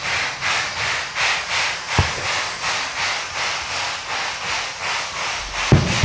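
Standing steam locomotive panting rhythmically, a little over two hissing beats a second, the way a stationary steam engine's air pump works. Firework bursts boom twice over it: a short thump about two seconds in and a louder one near the end.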